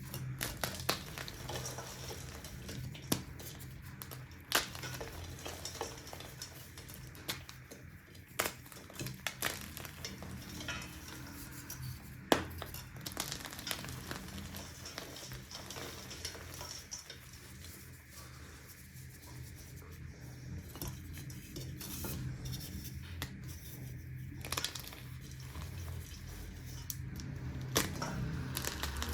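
Chalk being crushed and crumbled close to the microphone: irregular sharp crunches and snaps, with a steady low hum underneath.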